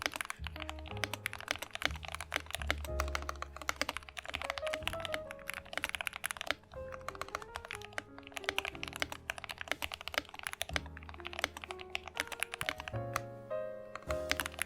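Rapid typing on a Yunzi KC68 mechanical keyboard, a dense run of keystroke clacks with the odd heavier thock, over background music.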